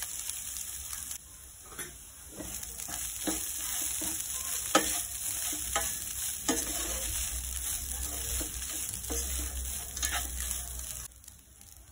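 Washed poha (flattened rice) dropping into a hot pan of frying peanuts and onions with a sizzle. About two seconds in, a wooden spatula starts stirring and scraping it around the pan in repeated strokes over the sizzle. The sound drops away just before the end.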